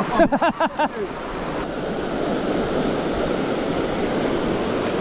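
A fast river rushing over boulders: a steady, even wash of water noise. A person's voice is heard briefly in the first second.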